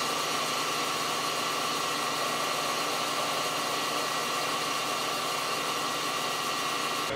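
Metal lathe running steadily while a cutting tool turns down a small shaft end, chips curling off: a constant mechanical hum with a steady whine and hiss.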